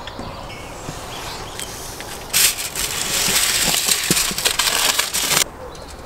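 A foil-covered metal roasting pan scraping across the floor of a brick wood-fired oven as it is pulled out. The harsh scraping lasts about three seconds and stops abruptly, after a few light knocks.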